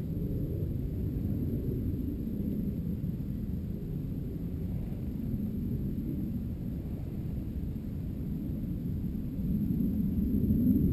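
Wind buffeting a GoPro's microphone: a steady low rumble that swells about a second before the end.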